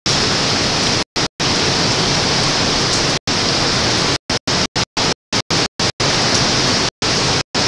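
Hurricane wind and rain making a loud, steady rushing noise on the camcorder microphone. The sound cuts out to total silence over a dozen times for a split second each, mostly in the second half.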